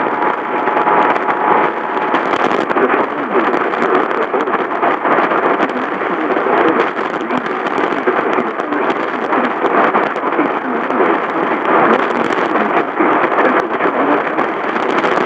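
Heavy static from a radio with a poor signal: a loud, steady hiss with a crackling texture and no clear voice coming through.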